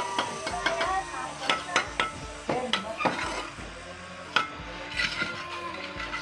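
Irregular clinks and scrapes of hard objects, like metal on a hard surface, with a faint steady tone underneath.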